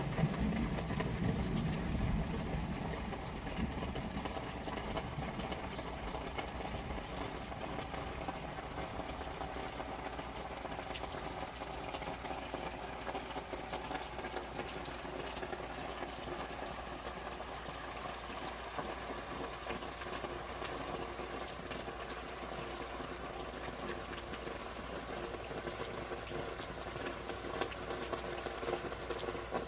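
Rain falling onto tarps just outside a window, heard from inside the room: a steady patter of many small drop ticks. A low rumble at the start fades away over the first few seconds.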